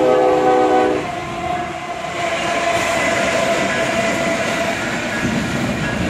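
Union Pacific diesel freight locomotives passing: the horn's chord sounds for about the first second and stops, then the engines and wheels rumble steadily as the train goes by.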